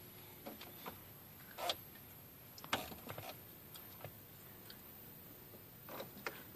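Faint, irregular clicks and taps of a pickup truck's dashboard control knobs being turned by hand.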